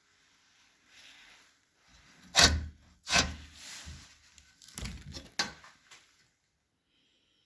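A stove or fireplace door being worked open and shut: two sharp knocks a little under a second apart, then a quick run of clicks and knocks a couple of seconds later.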